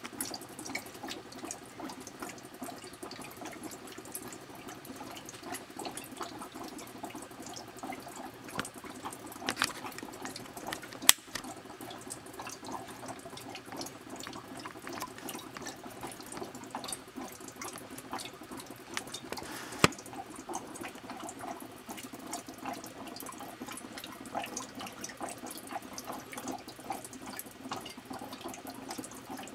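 Glass demijohns of red grape must in active fermentation, giving a continuous fine crackle of fizzing and bubbling as carbon dioxide rises through the must and escapes through the water airlocks. Two sharper clicks stand out, about 11 and 20 seconds in.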